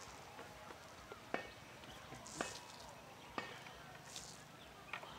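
Sharp clicks about once a second, with short hissing exhalations from people doing crunch and hip-raise repetitions.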